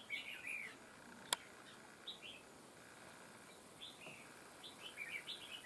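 Red-whiskered bulbuls singing short chirping phrases, several times over, with one sharp click a little over a second in.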